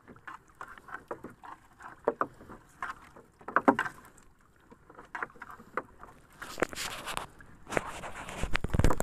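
Nylon fishing net hauled in by hand over a wooden boat's gunwale: irregular scraping and knocking of net and hands on the wooden rail, with water sloshing against the hull, busier and louder near the end.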